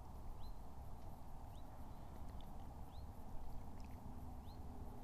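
A small bird's short, high, upward-sweeping calls, repeated about five times at roughly one a second, over a steady low rumble.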